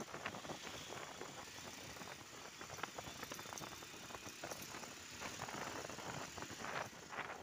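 Road noise from riding along a street: wind rushing over the microphone with irregular rattling clicks and knocks from the moving ride, and no clear engine note.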